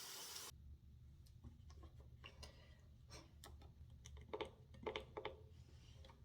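Running tap water cut off about half a second in, then faint scattered clicks and taps of small objects being handled.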